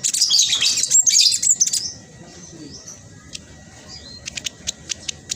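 Black sunbird singing: a fast, dense run of high chattering notes for about two seconds, then scattered sharp high chips.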